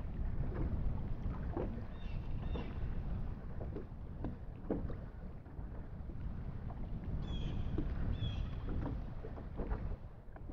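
Wind rumbling on the microphone, with water lapping and small splashes from a large musky held at the surface beside a boat while it is revived for release. Two brief pairs of high chirps come about two seconds in and again about seven seconds in.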